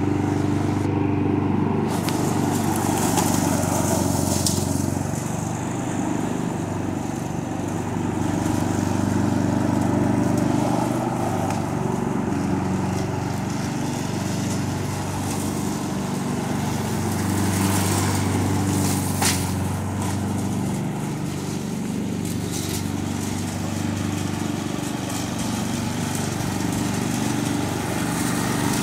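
Gasoline walk-behind lawn mower's small engine running steadily while cutting grass, with slight dips in level and pitch as it works. A single sharp tick about two-thirds of the way through.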